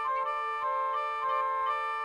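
Instrumental music: a melody instrument plays a quick, stepwise tune of short notes over a steady held drone note. This is the instrumental lead-in to a medieval song reconstruction.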